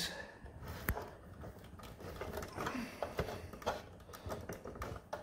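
Hands handling insulated wires and fitting a conductor into a plastic terminal block: a few sharp, irregular clicks among soft handling noise.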